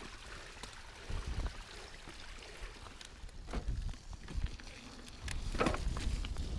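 Mountain bike riding downhill on a wet trail: tyres rolling over rock and dirt and the bike rattling with scattered clicks and knocks, under low wind rumble on the camera's microphone that grows louder with speed near the end.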